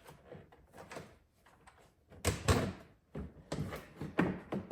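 Plastic storage compartment lid on a kids' ride-on truck being worked open: a few hollow clacks and knocks, the loudest about two seconds in.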